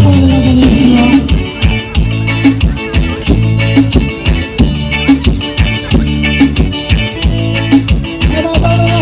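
Live forró band playing an instrumental passage, with a steady dance beat over a bass line.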